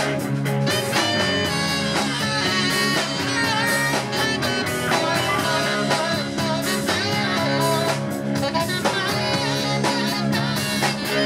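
Live band playing a blues-rock tune: saxophone playing a melodic line over electric guitar, keyboard, bass and drums, at a steady loud level.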